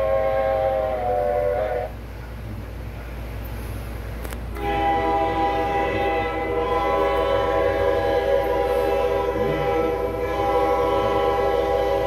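A train whistle sounding a steady chord of several notes, cutting off about two seconds in; after a short gap a diesel locomotive's multi-chime air horn sounds one long steady chord. Both are heard through a TV speaker.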